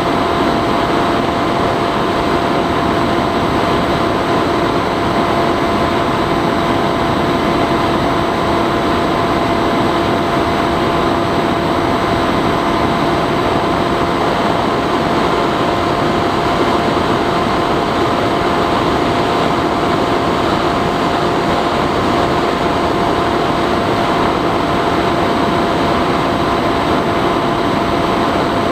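Bixler 3 RC plane's electric motor and pusher propeller running at a steady throttle, a constant hum with a few held tones over a loud rush of air, heard from a camera on board in flight.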